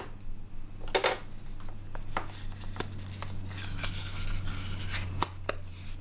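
iPhone 7 Plus being pressed into the inner shell of a Spigen Neo Hybrid case: handling taps and clicks, a sharper click about a second in, then a few seconds of rubbing and scraping as the phone is worked into place. A steady low hum runs underneath.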